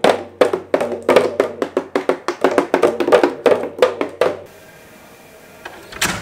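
Two children beating toy marching drums with sticks: quick, uneven strikes, about three or four a second, that stop about four and a half seconds in. A single knock near the end.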